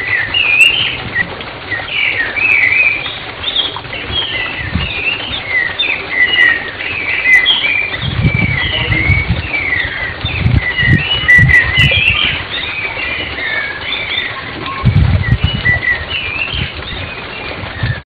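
Many small birds chirping and twittering in quick, overlapping calls, with low rumbling bursts about eight and fifteen seconds in; the sound cuts off suddenly at the end.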